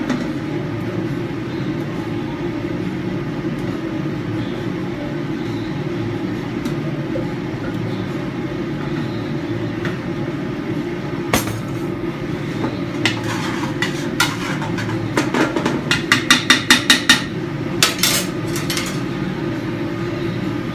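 Steady low rush of a kitchen exhaust hood, with sharp clattering knocks from about halfway as a food processor bowl and a spoon are rapped against a stockpot to knock out the last of the minced vegetables; a quick run of about eight knocks comes about three-quarters through.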